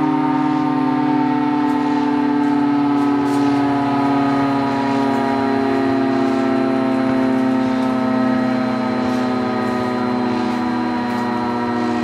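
B&M 20-AR-10 dual-rotor air-raid siren sounding a loud, sustained chord of several tones that slowly slides down in pitch.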